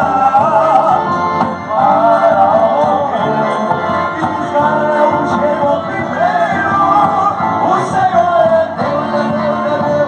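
Music: a voice singing a melody over instrumental backing.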